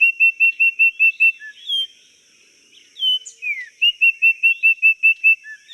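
A songbird singing two phrases, each a rapid run of about eight short, evenly spaced whistled notes led in by a few downslurred notes. A steady faint high hiss runs behind the song.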